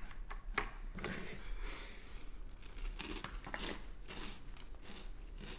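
Mouthfuls of Cocoa Puffs cereal being crunched and chewed, with a few light clicks of a metal spoon against a bowl.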